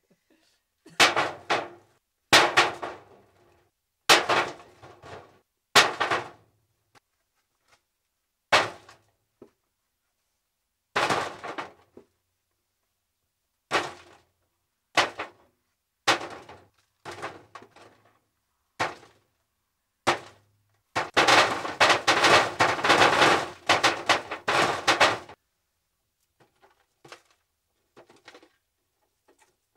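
Lumps of raw clay dropped into a metal trough, clattering on the metal in a dozen or so separate throws, then a run of about four seconds as many lumps tumble in together. Near the end only faint small clicks as lumps are shifted by hand.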